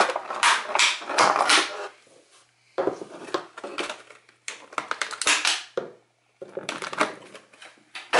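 Clear plastic packaging bags crinkling and rustling in someone's hands as they are unwrapped, in four bursts of crackling separated by short pauses.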